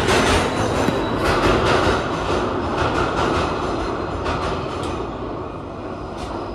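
Subway train running on the tracks nearby: a loud, steady rumble with rapid clacks of wheels over rail joints, slowly fading.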